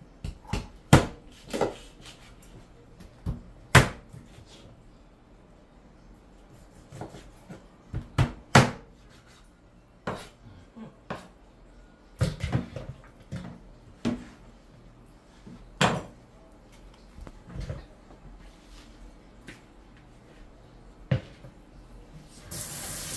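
Knife chopping raw chicken on a cutting board: irregular sharp chops and knocks, some in quick groups, with pauses between. Near the end a kitchen tap starts running.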